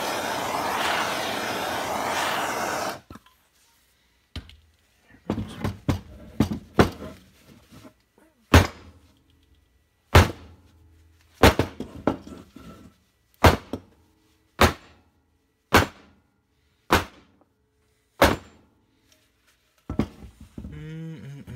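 A steady hiss from the heating tool cuts off about three seconds in. Then the aluminium crankcase half of a 1964 Norton Atlas is banged down on a wooden countertop again and again, a dozen or more thuds settling to about one a second, to shake out a main bearing race that is not yet hot enough to drop out.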